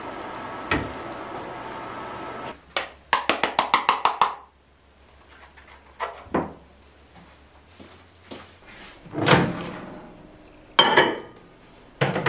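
Egg sizzling in a frying pan for the first couple of seconds, then a quick run of about eight clicks and kitchen handling knocks as cooked rice is tipped into a ceramic bowl. Near the end comes a sharp knock from a microwave oven's door.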